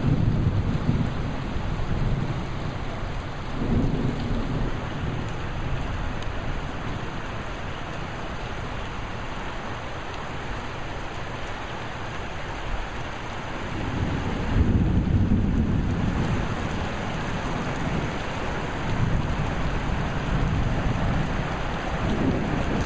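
Heavy rain pouring down steadily, with deep low rumbles swelling up several times, the strongest about two-thirds of the way through.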